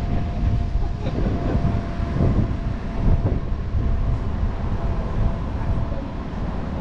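Low, uneven rumble of city street traffic, with a faint steady hum running under it.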